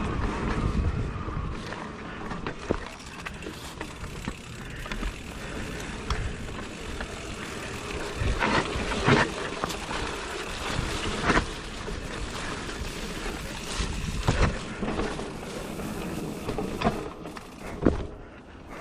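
Giant Reign E+ electric mountain bike ridden over rough trail: a steady rumble and rush of riding, with repeated sharp knocks and rattles from the bike over bumps, several of them loud through the middle and near the end.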